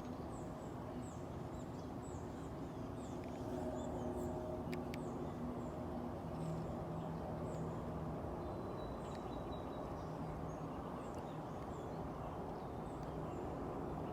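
Quiet outdoor ambience: a steady low rumble with a faint hum, and a small bird chirping faintly and repeatedly in short high notes.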